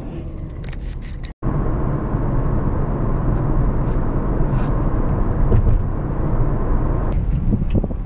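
Steady road and tyre rumble inside a moving car's cabin. It drops out for an instant just over a second in, then comes back louder as the car drives at speed, and eases off near the end as it slows.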